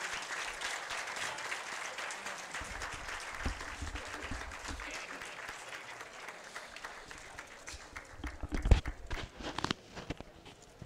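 Audience applauding, the clapping slowly dying away. Near the end come a few heavy thumps, the loudest about nine seconds in.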